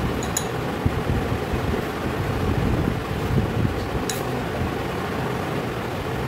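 Steady whirring hum of a fan running, with two light clinks near the start and about four seconds in as a brush touches a glass bowl.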